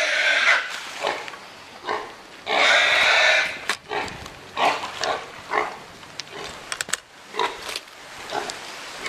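Wild hog squealing: a loud squeal at the start and another long one about two and a half seconds in, then shorter, weaker squeals about once a second.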